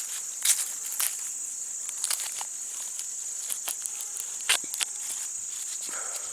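Dry corn husks crackling and tearing in irregular snaps as an ear of corn is shucked by hand, over a steady high-pitched insect chorus.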